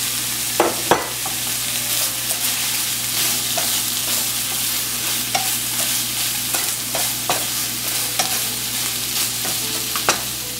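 Taro stem and hilsa fish head mixture sizzling in a pan while a spatula stirs it, with scattered clicks of the spatula against the pan.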